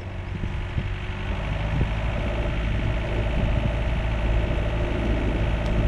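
A sailing yacht's inboard engine running steadily as the boat motors under way with no sail up. A hiss of wind and water lies over the engine's low drone.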